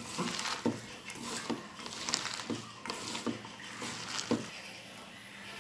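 Hands mixing thinly cut potato and eggplant strips with spices in a stainless steel bowl: a wet rustling of the vegetables with irregular light knocks against the bowl, about two a second.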